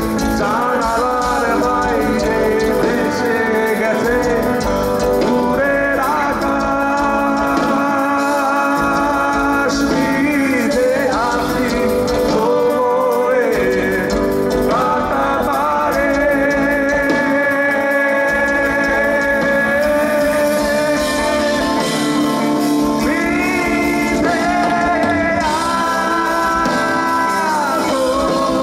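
Live rock band playing loudly: electric guitars, bass and drums, with long held melody lines that bend in pitch.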